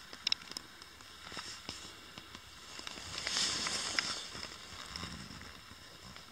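Soft rustling with scattered small clicks and crackles, swelling briefly in the middle.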